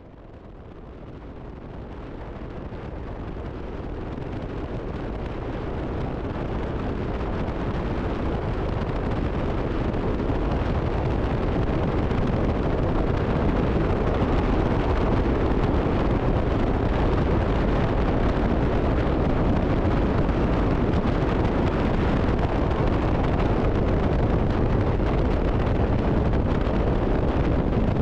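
Wind buffeting the microphone over the steady rushing noise of a vehicle on the move. It fades in from quiet over the first dozen seconds or so, then holds steady.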